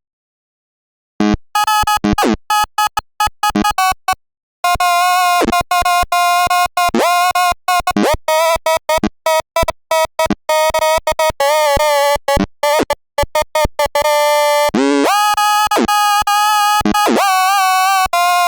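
Glitchy electronic sound effect: a buzzy synthesized tone chopped into rapid stutters, with dropouts to dead silence and several quick pitch swoops. Near the end it settles into a steady held note.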